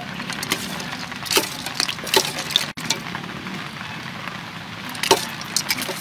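Metal ladle stirring in a stainless steel bowl of coconut milk, with several sharp clinks of metal on metal.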